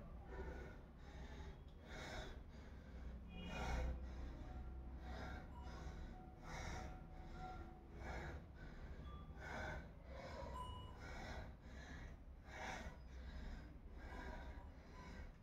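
A person breathing hard and rhythmically, with short forceful breaths about three every two seconds.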